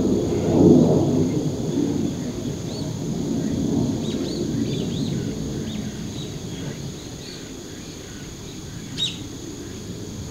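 Outdoor ambience: a low rumble that slowly fades, under a steady high-pitched whine, with small birds chirping now and then and one louder chirp near the end.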